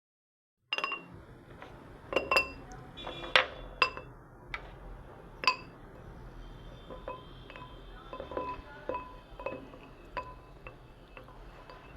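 Slate pencils clinking against each other: a series of sharp, ringing clicks. The first few are louder and spaced out, followed by many lighter, closer-set taps.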